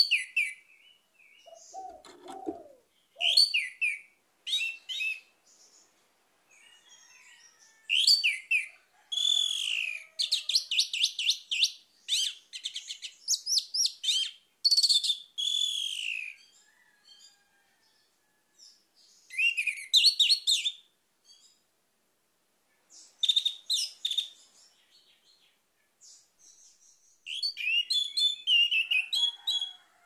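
Orange-headed thrush singing: bursts of varied whistled phrases and fast trills, separated by pauses of a second or two, with the longest run of song in the middle.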